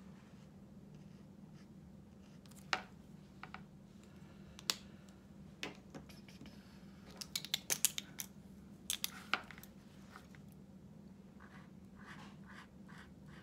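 Marker pens and caps handled on a wooden table: scattered sharp plastic clicks and clacks, with a quick run of them in the middle, as one marker is put down and another uncapped. Near the end comes the faint scratching of an oil-based Sharpie paint marker's tip on paper.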